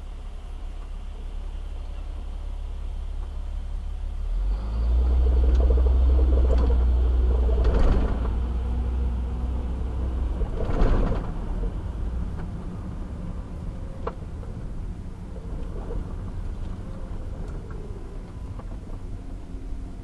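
Car engine and road rumble heard from inside the cabin. It is low and steady while stopped, and grows louder about four seconds in as the car pulls away in traffic, with two brief louder swells later on.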